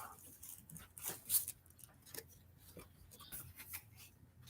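Faint, scattered rustling and light clicks of small product packaging being handled.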